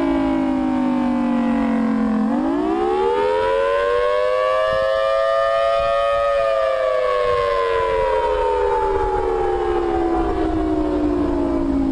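Civil defense siren wail. The pitch falls, winds back up over about four seconds, then slowly drops again.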